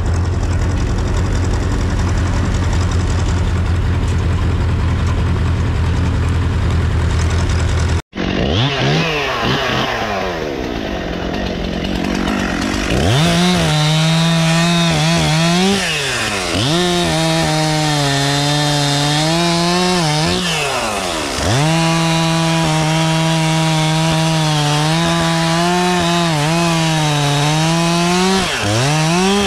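A Zetor 4011 tractor's four-cylinder diesel engine running, then after a cut a Stihl MS 261 two-stroke chainsaw revving up and cutting a dead log. The saw is held at full throttle in three long cuts, dropping back toward idle between them.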